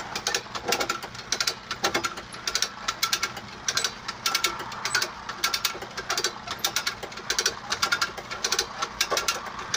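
Hand-cranked come-along winch ratcheting in quick runs of sharp clicks as it hauls a flat-bottom boat in, with a motor running steadily underneath.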